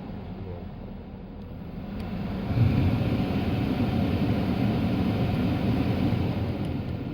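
Porsche Cayenne climate control running, with a steady rush of air and a low hum. It gets clearly louder about two and a half seconds in, holds, and eases off near the end, as the temperature setting is changed and the flap moves.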